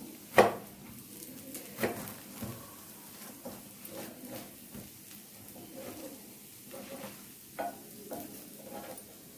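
Slotted spatula knocking and scraping against a nonstick frying pan as it cuts a thick urad dal flatbread in half, over a faint sizzle. The sharpest knock comes about half a second in, with lighter taps and scrapes after it.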